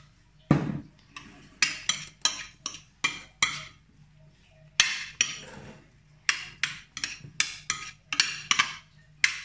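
Metal spoon scraping and clinking against a glass baking dish while tossing a bulgur and quinoa salad, in quick irregular strokes about two a second. There is a heavier thump about half a second in.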